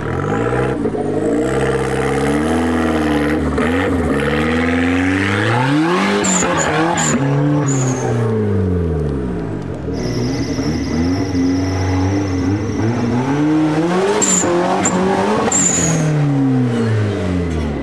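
Off-road 4x4 competition vehicle's engine revving up and down under load several times, climbing to a peak about six seconds in and again around fourteen seconds, with brief high-pitched squeaks twice.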